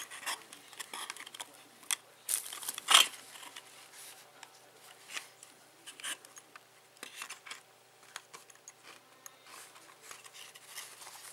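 Handling noise of camera sunglasses and their zippered hard-shell case: scattered scratchy clicks, rubs and rustles, the loudest a short burst about three seconds in.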